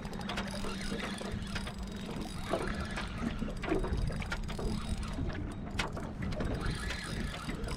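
Spinning reel being wound under load from a hooked redfin, its gears ticking with small scattered clicks, over a steady low rumble of wind on the microphone.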